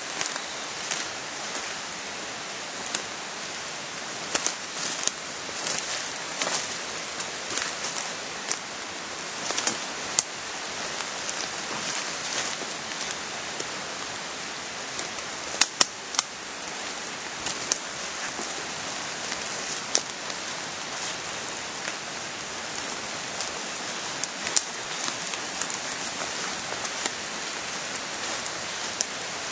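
Footsteps through woodland undergrowth: irregular crackles and snaps of leaves and twigs over a steady hiss.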